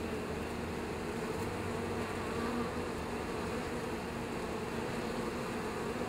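Many honeybees buzzing at a hive entrance as they land and take off: a steady hum of wingbeats.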